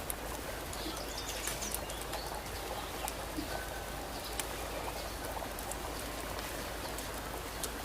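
Chicken drumsticks frying in hot oil: a steady sizzle dotted with many sharp crackles and pops.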